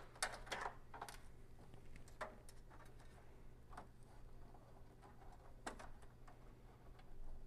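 Faint scattered clicks and small knocks of hands handling wiring and pulling the wire connectors off a power switch on a metal instrument panel, over a low steady hum.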